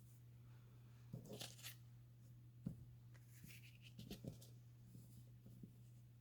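Faint handling of paper scraps: a few short rustles and crinkles, with one sharp tap a little before the middle, over a low steady hum.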